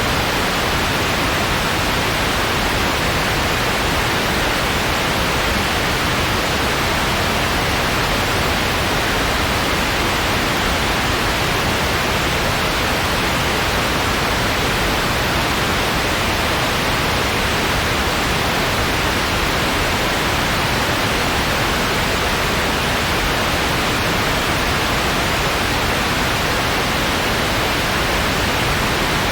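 Steady white noise: an even, unchanging hiss with no crackles or tones.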